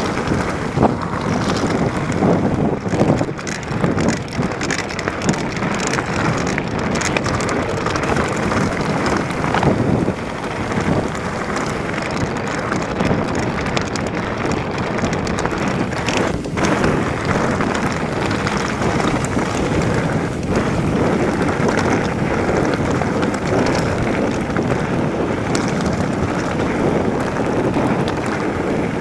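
Heavy wind rushing over a handlebar-mounted camera's microphone as a mountain bike descends at about 28 mph, mixed with the rattle of the tyres and bike on a loose gravel track. Sharper knocks come through over the first ten seconds or so.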